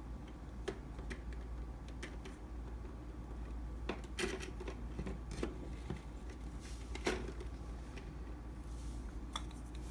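Scattered light clicks and rustles of food packages and containers being handled and set on refrigerator shelves, a little busier about four seconds in, over a steady low hum.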